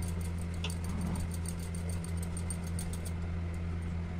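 Wheat flour being sifted through a hand sieve shaken over a bowl: faint rapid ticking and rustle, about five strokes a second, that pauses near the end. Under it runs a steady low mechanical hum, the loudest sound.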